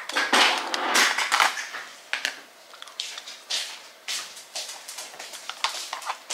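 Hands crinkling and rustling makeup packaging. The crackling comes in loud, dense bursts over the first second and a half, then as lighter, scattered crackles.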